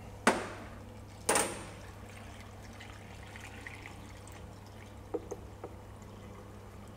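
Two sharp knocks about a second apart, then vinegar-and-water pickling liquid trickling from a plastic measuring jug into a large glass jar packed with caper shoots and garlic.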